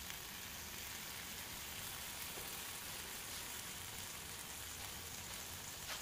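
Bacon strips frying in a skillet, giving a steady, even, high sizzling hiss as the fat renders.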